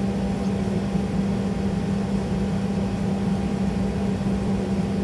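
Airliner cabin noise in flight: a steady drone of jet engines and rushing air with a constant low hum.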